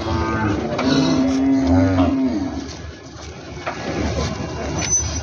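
Zebu cattle mooing in a crowded pen: overlapping calls near the start, then one long, low, steady moo that ends about two and a half seconds in.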